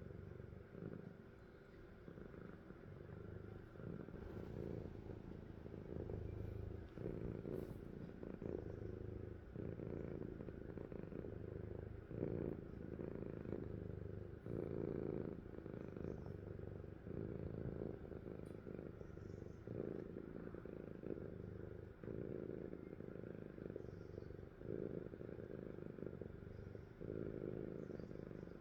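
Sleeping cat purring, a steady low purr that swells and fades with each breath about every second or two.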